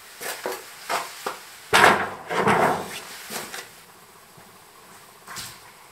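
Irregular knocks and scuffs on wood, loudest about two seconds in, from someone climbing a wooden ladder up through a floor hatch onto barn-loft floorboards. One more knock comes near the end.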